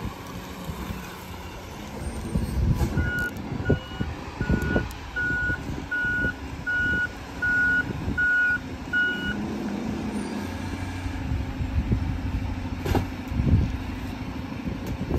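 Garbage truck's reversing alarm beeping at an even pace for about six seconds, starting about three seconds in, as the truck backs up, over its engine running. Two loud knocks near the end.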